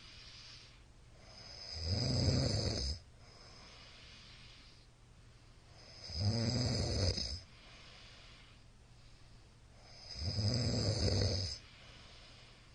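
A middle-aged man snoring loudly in his sleep: three long snores about four seconds apart, with quieter breathing between them.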